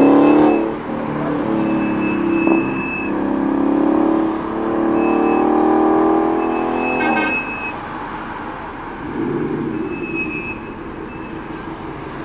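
Car engine revving, then pulling away with its pitch climbing steadily for several seconds before it cuts off suddenly about seven seconds in. A lower, rougher engine rumble follows. A thin high tone comes and goes several times.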